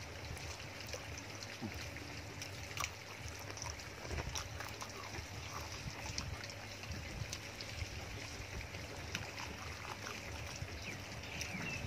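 A person chewing cooked beef leg meat and tendon: soft wet mouth sounds with scattered small clicks and smacks.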